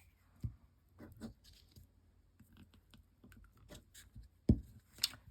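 Paper collage pieces being handled and stuck down on a tag at a craft desk: faint scattered rustles and light taps, then one louder thump near the end and a sharp click just after it.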